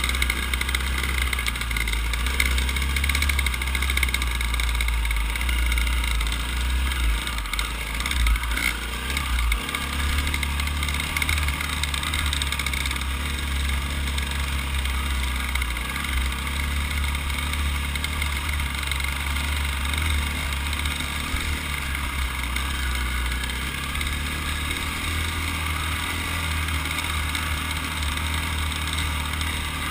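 Dirt bike engine running steadily at low trail speed, with a heavy low wind rumble on the bike-mounted microphone that comes and goes.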